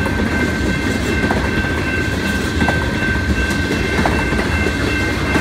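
Freight train of covered hopper cars rolling past a grade crossing: a steady low rumble with wheels clicking over a rail joint a little over once a second. Above it the crossing's warning bell rings continuously as a steady high tone.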